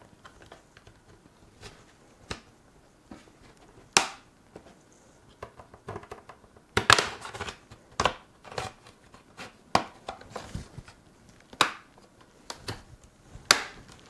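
Plastic clips of an Acer Aspire 5 laptop's bottom cover snapping loose as the case is pried off from the rear: a string of irregular sharp clicks and snaps with quiet gaps between them.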